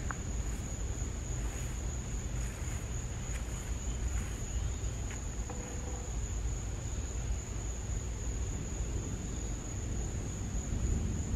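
Insects droning steadily at one high pitch over a low rumble, with a few faint ticks.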